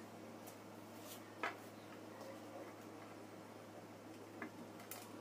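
Faint, scattered light clicks and taps of hand-cleaning a compressor's small plastic cooling fans with a damp cloth and a screwdriver, the sharpest click about one and a half seconds in, over a faint steady low hum.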